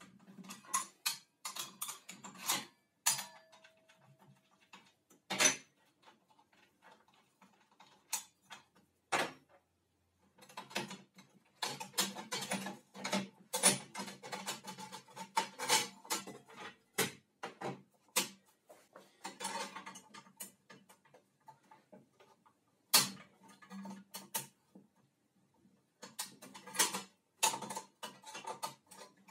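Irregular clicks, taps and clatters of a circular saw's metal base plate, blade guard and plastic housing being handled and adjusted by hand, coming in bursts with short pauses.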